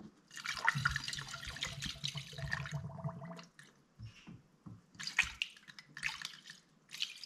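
Red coolant (antifreeze) poured from a plastic jug through a funnel into a car's coolant expansion tank, splashing and gurgling, while the tank is topped up to its maximum mark. The pour runs steadily for about three seconds, then goes on in fainter, broken glugs.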